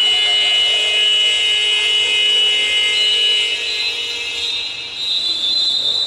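Electronic buzzer or horn sounding one long, steady high note made of several tones together, which shifts slightly higher in pitch partway through. With the game clock at 0:00, it is the signal for the end of the quarter.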